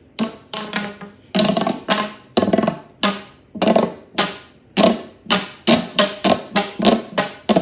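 Big plastic pop tubes being stretched and squashed over and over, each stroke a loud pop with a short ringing tone, the strokes coming faster toward the end.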